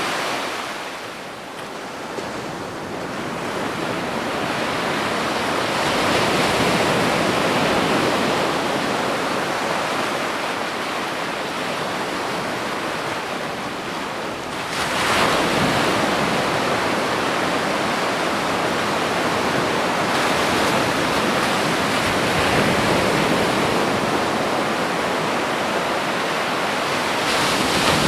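Ocean waves breaking on a beach: continuous surf wash that swells and ebbs, with a wave crashing about halfway through and another near the end.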